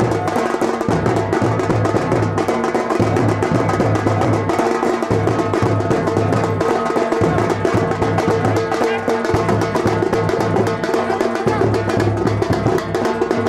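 Music with a fast, busy drum and percussion beat over a repeating low bass pulse.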